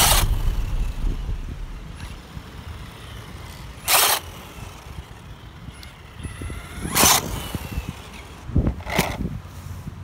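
ZD Racing MT-16 1/16 brushless RC monster truck driving on asphalt, its brushless motor giving a faint whine that rises and falls. Three short, loud rushes of noise come at about four, seven and nine seconds in. Background music fades out over the first two seconds.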